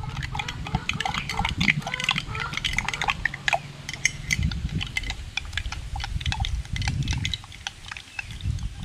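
A long metal spoon stirring orange juice and sugar in a glass mug, clinking lightly and irregularly against the glass as the sugar dissolves. A low rumble comes and goes underneath.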